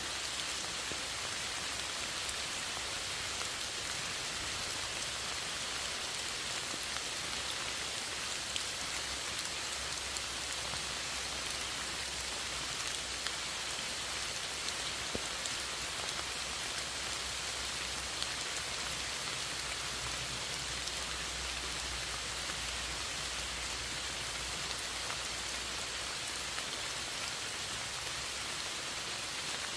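Steady rain falling, a continuous hiss with scattered sharper drop ticks.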